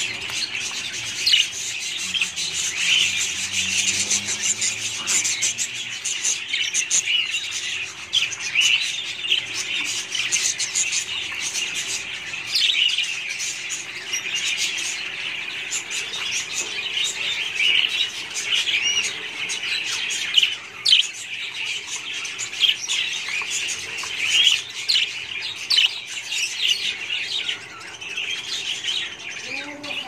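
Budgerigars chirping continuously, many short high calls overlapping in a steady chatter.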